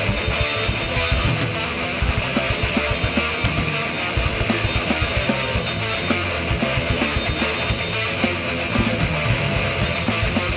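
Fast thrashcore music without vocals: distorted electric guitar riffing over fast, dense drumming.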